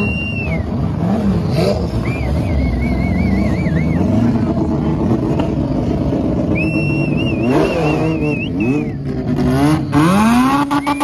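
Race car engines driving past one after another, revving and changing pitch as they go by. In the last second or so, one engine revs sharply up towards the redline. A high, warbling whistle sounds above the engines three times.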